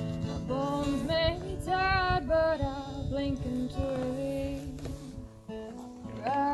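Background song: a woman singing over guitar, with held, bending sung notes and a short break before the next phrase near the end.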